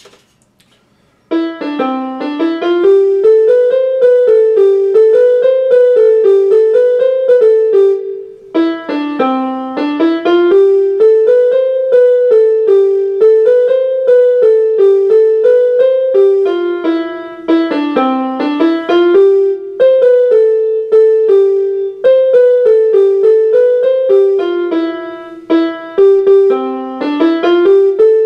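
Small electronic keyboard playing a simple one-note-at-a-time melody in repeating phrases. It starts about a second in, with a short break around eight seconds.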